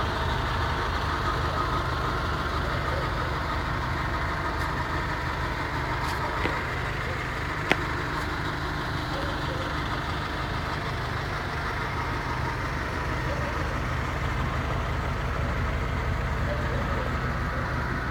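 Off-road SUV's engine running steadily without revving, with a sharp knock about eight seconds in.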